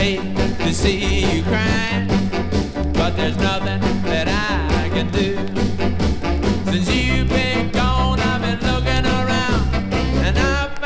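Mid-1960s rock and roll band music played from a vinyl LP, with a bouncing bass line, drums and melodic lead lines.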